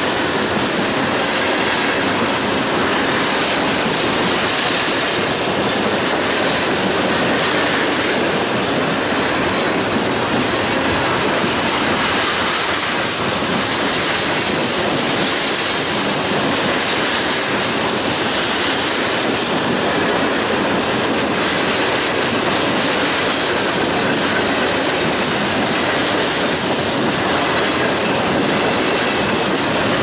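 A CSX freight train's cars rolling past at a steady level, their wheels clicking over the rail joints.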